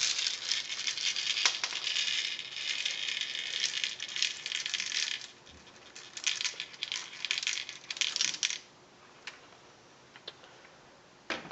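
Steel BBs rattling as they are emptied out of a Daisy 880 air rifle's BB reservoir: a dense rattle for about five seconds, a brief pause, then a second shorter bout, followed by a few faint clicks.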